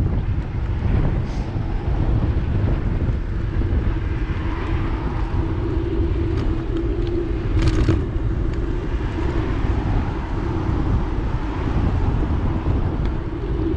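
Steady wind and road rumble picked up by a handlebar-mounted camera as a bicycle rolls along a tarmac cycle path, with cars passing on the road alongside. A brief sharp knock about eight seconds in.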